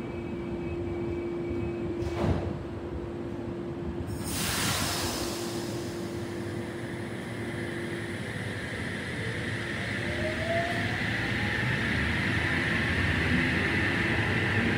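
Double-deck electric train, an Oscar H-set, pulling out: a sharp hiss of air about four seconds in, then the traction motors whine, rising in pitch and growing louder as the train accelerates.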